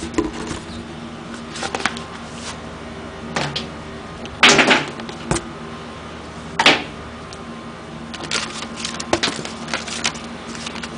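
Paintball gear being unpacked by hand: scattered clicks, taps and rustles of packaging, with two louder rustles about four and a half and six and a half seconds in.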